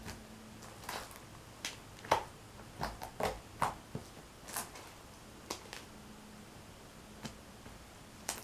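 Homemade fluffy slime being squeezed and poked in the hands for a clicky test, giving a string of irregular sharp clicks and pops, more frequent in the first half.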